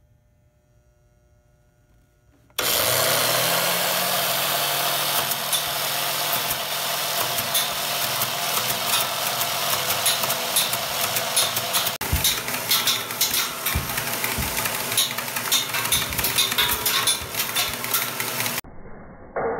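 Near silence, then a CD gun's motor starts with a rising hum about two and a half seconds in. It runs steadily while compact discs fire and shatter against aluminium truss in a constant clatter of sharp cracks and flying fragments, then cuts off suddenly near the end.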